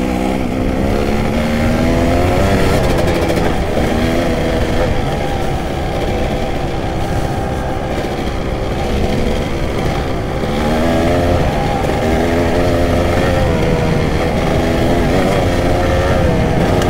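Kawasaki KX250 dirt bike engine running under load on a trail ride. The revs rise and fall again and again as the throttle is worked, with steeper climbs about ten seconds in and near the end.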